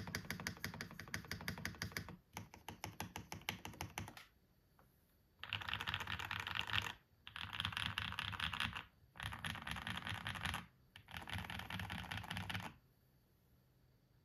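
Typing on a Brutal65 V2 mechanical keyboard with hand-lubed Gateron Smoothie linear switches, JTK keycaps and foam-dampened case and plate: fast, even keystrokes for about four seconds, then after a short pause four denser bursts of rapid keypresses, each about a second and a half long.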